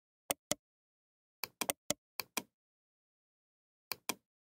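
Computer mouse clicking: about ten short, sharp clicks, mostly in quick pairs like double-clicks.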